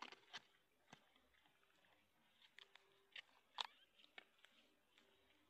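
Mother cat licking and grooming her newborn kittens: faint, irregular wet clicks of her tongue.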